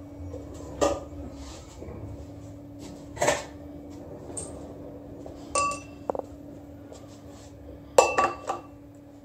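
Metal engine parts and tools being handled on a workbench: a handful of sharp metallic clanks and clinks, some ringing briefly, with the loudest cluster near the end. A steady low hum runs underneath.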